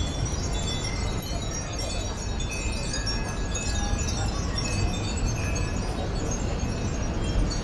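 Many furin (Japanese wind chimes) tinkling at once in the breeze, a scatter of short, high, overlapping rings over a steady low rumble.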